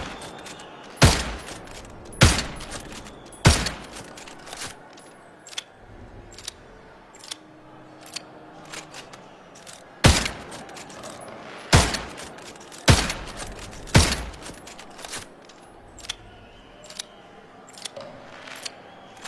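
Bolt-action pistol firing: three shots about a second apart, then a pause of several seconds with lighter clicks, then four more shots, each a sharp report with a short decaying tail. More light clicks follow near the end.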